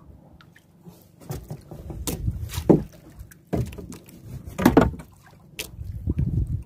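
Irregular knocks and clatters on a small wooden outrigger boat, the loudest about three and five seconds in, over a low rumble of water and wind.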